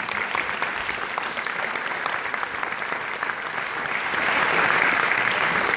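Concert audience applauding, a dense patter of many hands clapping that swells louder about four seconds in, picked up on a phone's microphone.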